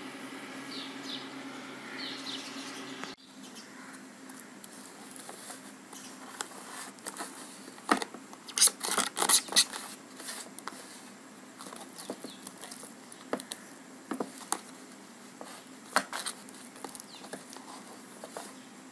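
Kitchen knife scraping and cutting through frozen kulfa in a plastic tub: a run of irregular scrapes and clicks, busiest and loudest about eight to ten seconds in. For the first three seconds a steady hum with short high chirps runs, then cuts off suddenly.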